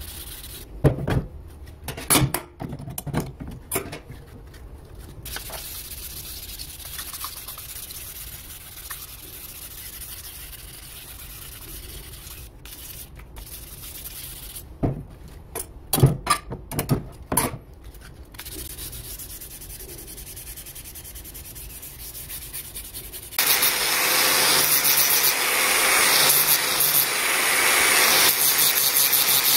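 A Damascus steel knife blade being scrubbed by hand, with two spells of short, scratchy rubbing strokes. About three-quarters of the way through, the sound switches abruptly to an angle grinder running steadily and much louder.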